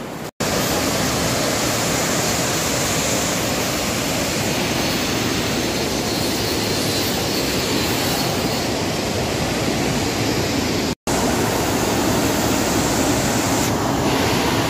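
Steady, loud roar of a waterfall's rushing white water, broken by two split-second gaps, about half a second in and about eleven seconds in.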